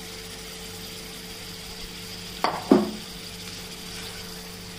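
A wooden spatula stirring spinach paste into a thick masala in a cooking pan, over a steady faint hum. About two and a half seconds in come two sharp knocks in quick succession against the pan, the second ringing briefly.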